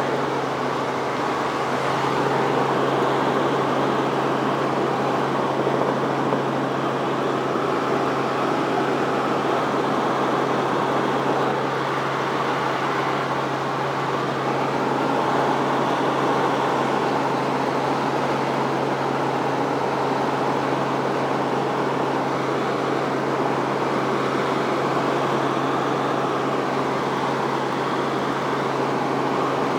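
Robinson R44 Raven helicopter in flight, heard from inside the cabin: the engine and rotors make a constant drone with a steady low hum underneath.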